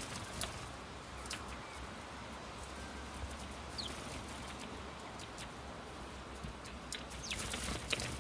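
House sparrows on a plastic wheelie-bin lid: scattered short chirps mixed with light taps of feet and beaks on the plastic, with a busier flurry of taps and wing flutters near the end.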